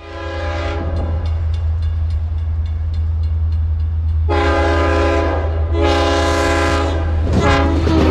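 CSX freight train's diesel locomotives passing with a steady deep rumble while the multi-chime air horn sounds: a blast that ends just under a second in, then two long blasts from about four seconds in and a short one near the end.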